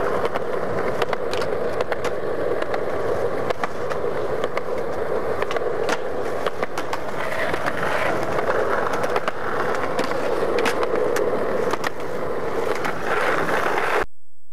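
Skateboard wheels rolling steadily over smooth concrete, with many small sharp ticks over the rolling noise. The sound cuts off suddenly near the end.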